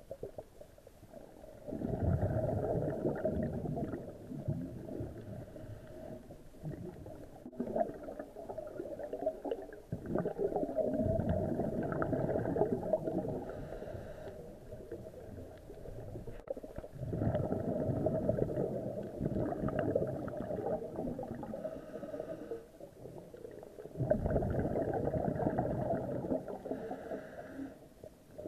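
A scuba diver's exhaled bubbles gurgling out of the regulator, heard underwater, in four long bursts about seven seconds apart with quieter breaths between.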